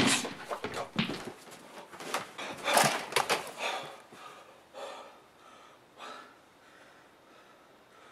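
A loud crash dying away at the very start, then a man gasping and breathing hard in shock, with the rustle and bumps of him scrambling about on a couch. The sounds thin out after about four seconds to a few fainter breaths.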